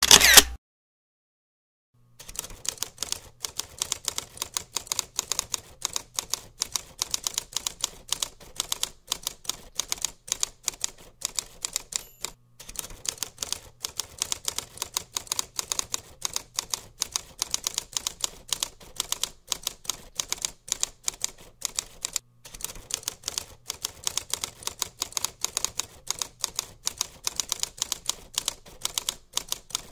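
Typewriter keys clacking rapidly and steadily, a typewriter sound effect. It comes in three long runs, broken by brief pauses about twelve and twenty-two seconds in.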